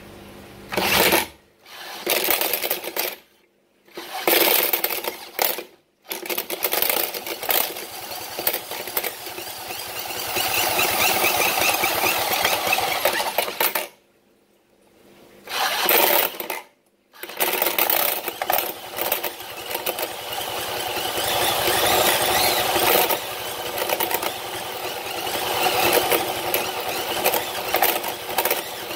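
Cordless impact wrench hammering on the nut of a scooter's CVT drive pulley, turning the pulley: three short bursts, then long runs of rapid clatter several seconds each, broken by a short pause about halfway.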